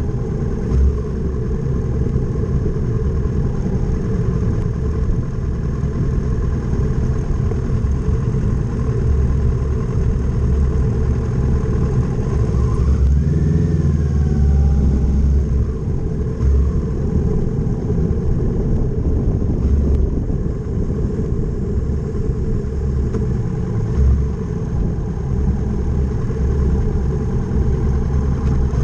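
Kawasaki Z650 motorcycle engine running steadily while being ridden, mixed with heavy low wind rumble on the camera microphone.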